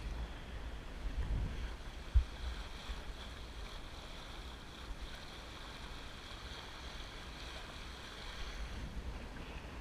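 Water rushing past the hull and churning in the wake of a Drabant 27 sailboat under sail, with wind buffeting the microphone. A single sharp low thump about two seconds in.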